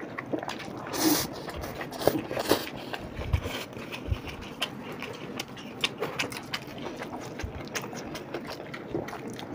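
Two people eating chow mein noodles: metal forks clicking and scraping on the plates, with noodles slurped and chewed, including a brief slurp about a second in.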